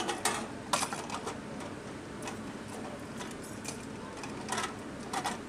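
Belted machine-gun cartridges clinking against each other and their metal links as the belts are handled and laid down: a quick run of metallic clicks in the first second and a half, then scattered clicks, over a steady background noise.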